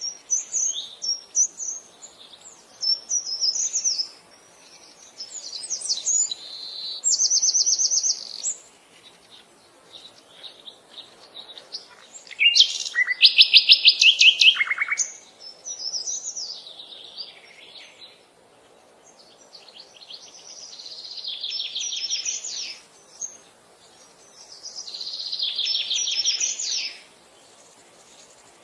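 Birds singing in the open: bursts of high chirps and fast trilled phrases separated by short pauses, the loudest trill about halfway through.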